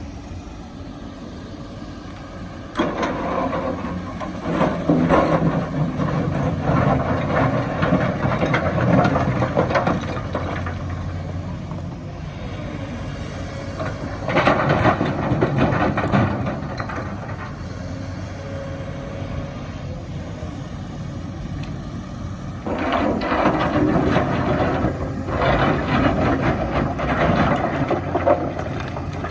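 Kobelco hydraulic excavator running steadily, with three long stretches of rocks grinding and clattering as the bucket works through broken rock.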